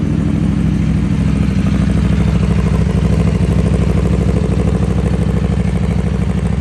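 Aprilia Tuono sport motorcycle with an aftermarket slip-on exhaust idling steadily close by.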